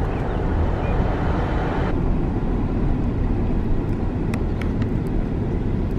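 Car driving with a window open: steady wind rush and road noise. The hiss thins about two seconds in.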